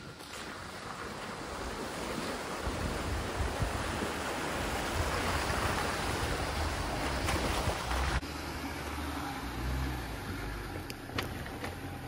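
A Jeep driving through a shallow mud hole: water and mud splashing against the tyres and underbody in a rush that builds over several seconds, with the engine running underneath. The splashing cuts off abruptly about eight seconds in, leaving the engine running and a few clicks.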